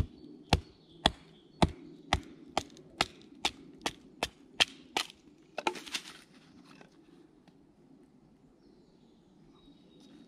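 Wooden mallet knocking on the spine of a knife to baton it down through a short hazel stick: about a dozen sharp knocks, roughly two a second. About six seconds in the wood cracks as it splits apart, then the knocking stops.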